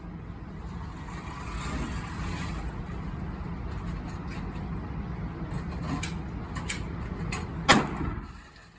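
Steady low rumble of a running vehicle, with a few sharp clicks and a loud knock near the end, after which the rumble stops abruptly.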